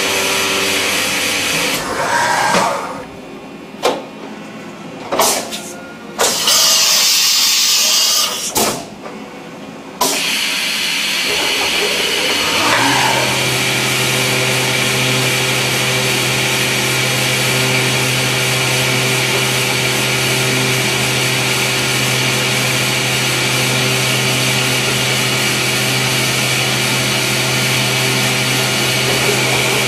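CNC milling machine cutting a brass part. The spindle and cutting noise drop off about two seconds in, leaving clicks and a hiss of about two seconds as the tool is changed, then resume around ten seconds in and settle into a steady hum as a small drill works the brass.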